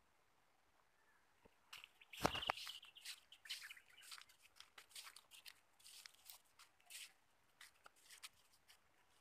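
Faint, irregular footsteps crunching on a dirt path. They start about two seconds in, with one louder crunch just after they begin.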